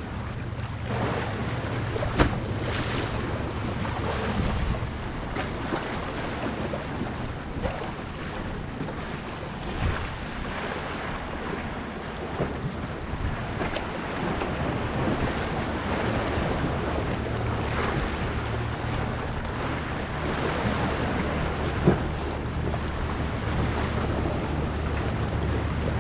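Wind buffeting the microphone over the steady wash of waves and surf, with two sharp knocks, one about two seconds in and one near the end.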